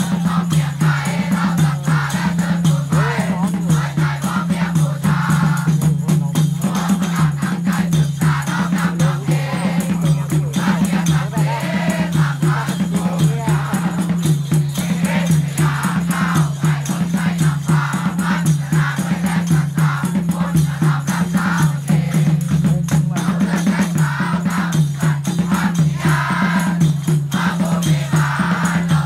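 Loud music with group singing over a steady, pulsing low beat and rattling, shaker-like percussion.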